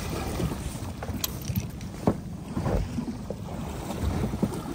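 Wind rumbling on the microphone aboard a small fishing boat, with a few sharp clicks and knocks, about one and two seconds in, while a hooked fish is brought in.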